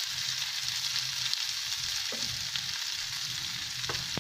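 Bathua cutlets sizzling steadily as they shallow-fry in oil, stirred with a wooden spatula in the pan, with two short scrapes or knocks of the spatula, about two seconds in and near the end, over a low hum.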